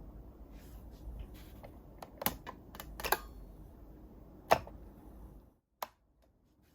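A string of sharp clicks over a low background rumble, the loudest about four and a half seconds in; the rumble cuts off suddenly near the end.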